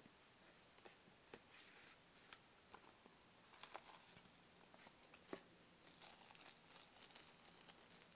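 Faint handling of phone packaging: cardboard box flaps and plastic wrapping rustling and crinkling, with scattered light clicks. A slightly sharper tap comes a little past halfway.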